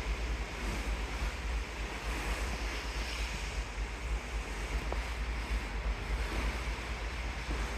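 Steady wash of the open sea, with wind buffeting the microphone in a low rumble.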